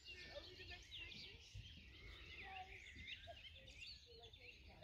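Faint birdsong: many short chirps and twitters from several small birds, overlapping throughout, over a low background rumble.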